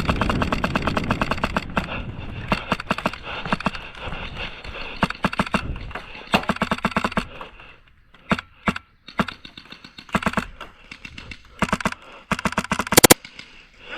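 Airsoft guns firing rapid bursts of clicking shots: a long fast burst at the start, then several shorter bursts, with one sharp, loud crack near the end.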